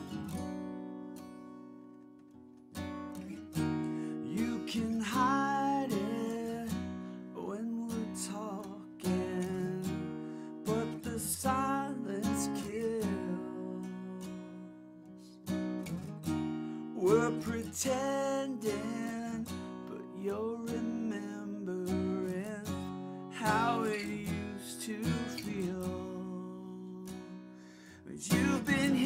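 Taylor steel-string acoustic guitar played solo: strummed chords with picked notes. A chord rings and fades at first, and the strumming starts again about three seconds in, with a strong strum roughly every one to two seconds after that.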